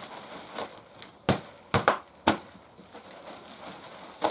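A 10-litre potato container being handled to tip it out: about five sharp knocks and taps in the first couple of seconds, with rustling in between.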